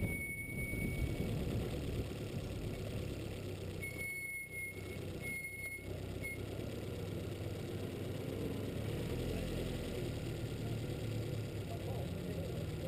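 Wind and road noise from a bicycle descent, with a few short high-pitched beeps in the first six seconds. A motor vehicle engine then idles with a steady low hum, building from about nine seconds in.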